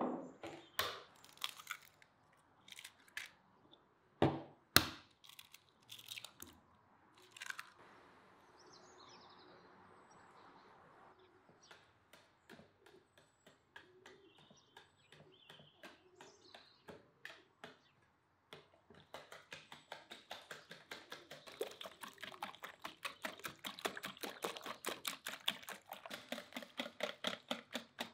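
Metal balloon whisk beating eggs in a white bowl: fast, even strokes clicking against the bowl, about four or five a second, starting about two-thirds of the way through. Before that, scattered clinks and knocks of kitchen work.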